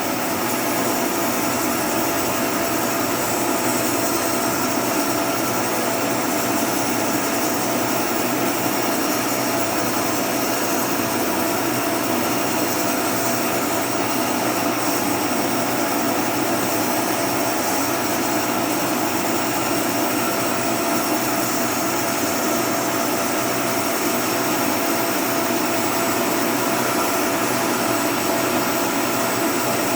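Homemade mini sawmill running steadily, a constant motor hum and whine with no change in load.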